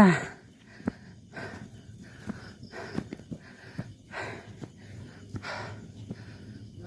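A person breathing hard, one breath about every second and a half.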